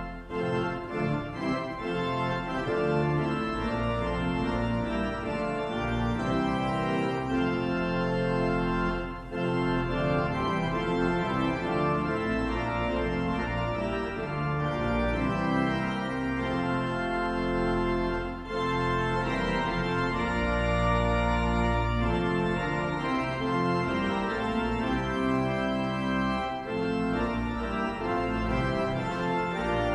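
Church organ playing a hymn in full, sustained chords, with short breaks between phrases.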